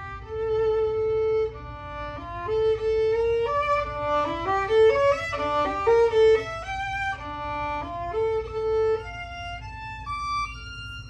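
Violin playing a melody: held notes at first, a quicker run of notes in the middle, and a higher held note near the end.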